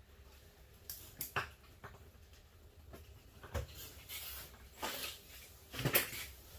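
Scattered knocks and clatter from dishwasher parts being handled during dismantling, with a few short scrapes, and the loudest knock about six seconds in.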